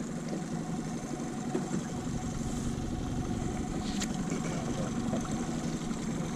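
Mercury outboard motor running steadily at trolling speed, an even low hum, with one sharp click about four seconds in.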